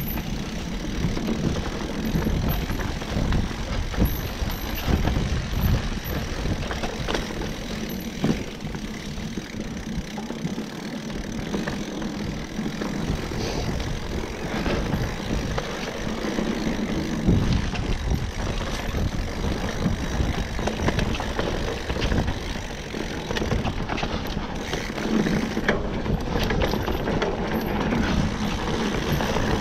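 Mountain bike ridden fast along a dirt singletrack: wind rumbling on the camera microphone over the sound of tyres rolling on dirt, with frequent knocks and rattles as the bike goes over bumps.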